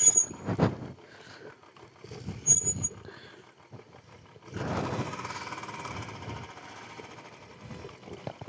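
Motorcycle going slowly down a rough, rutted dirt track: a few knocks and bumps, with two brief high squeaks in the first three seconds. From about halfway there is a steadier hiss with a faint whine.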